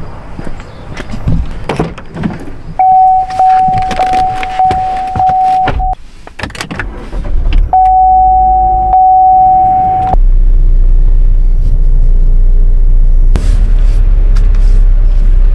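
Clicks and knocks of handling in the car, then a steady high electronic chime tone that sounds twice for a few seconds each. From about ten seconds in, a steady low rumble of the Buick Encore's 1.4-litre turbo engine running.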